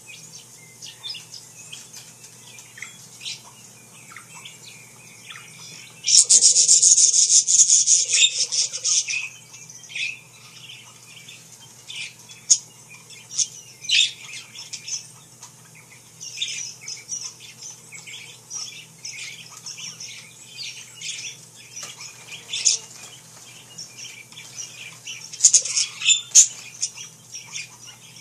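Parakeets chirping and squawking in many short, high calls, with a loud dense burst of sound about six seconds in that lasts some three seconds and a cluster of louder calls near the end.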